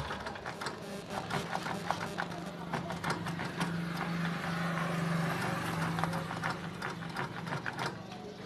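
Small clicks and taps of hands working the choke knob and key switch on a gasoline generator's control panel, with a faint steady hum through the middle.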